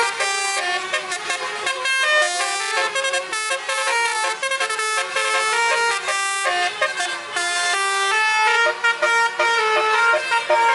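Bus 'telolet' horn set playing a quick tune of short, changing horn notes, one after another without a break.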